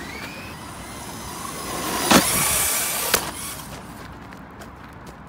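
Brushless RC car's electric motor whining up in pitch and its tyres rushing as it runs at a jump, with a loud bang about two seconds in as it hits down and a second, sharper knock about a second later; the noise then dies away.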